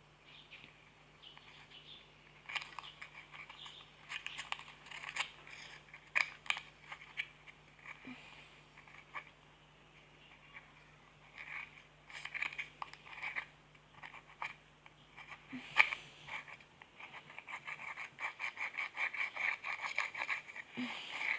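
Slime being played with by hand: irregular sticky clicks and crackling pops, coming fast and close together near the end.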